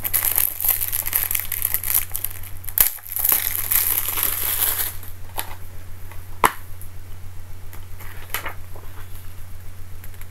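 A blue plastic Blu-ray case and its paper insert handled close to the microphone: crinkling and rustling for the first five seconds, then scattered sharp clicks, the loudest about six and a half seconds in. A steady low hum runs underneath.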